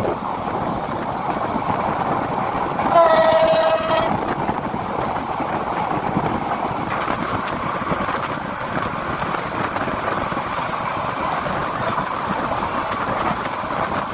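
Passenger train running, a steady rumble and rattle of the moving carriage, with one train horn blast lasting about a second, about three seconds in.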